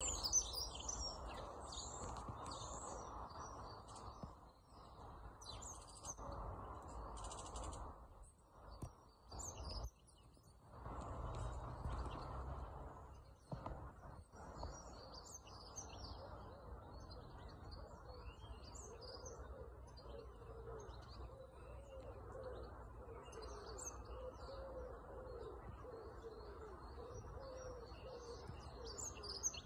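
Dunnock singing: short, high, fast warbling phrases repeated every few seconds over a steady low background rumble. A faint low wavering sound joins in the second half.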